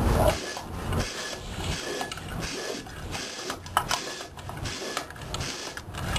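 Hand bike pump worked in steady repeated strokes, pushing air through the hole in a metal can to flush out the exhaust fumes of a failed ignition and refill it with fresh air.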